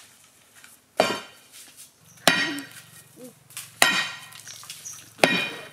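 Steel digging bar driven into a sandstone boulder to break out stone: four ringing metal-on-rock strikes, about one every second and a half.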